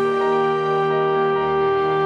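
Lighthouse foghorn sounding one long, steady blast over soft background music.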